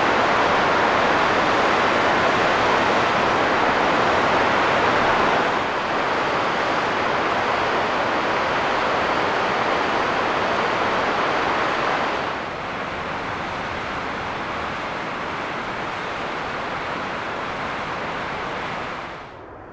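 Steady rush of a whitewater mountain river, dropping in level about six seconds in and again about twelve seconds in.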